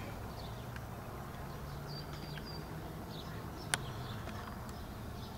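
Quiet outdoor ambience with faint, scattered high chirps and a low hum. One sharp click comes a little past the middle.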